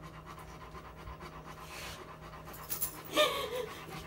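Rottweiler panting steadily with its mouth open. A short whining cry comes about three seconds in.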